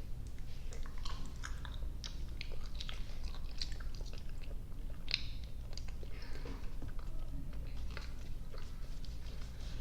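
Close-miked chewing of soft, sticky gummy and marshmallow candy: an irregular run of small clicks and smacks from the mouth.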